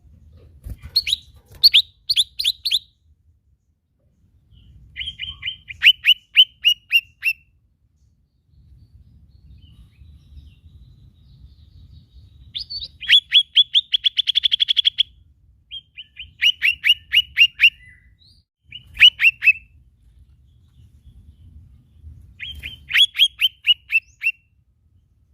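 Lesser green leafbird (cucak ijo mini) singing: short phrases of quick, falling whistled notes, repeated six times with pauses between, one phrase ending in a fast trill about halfway through.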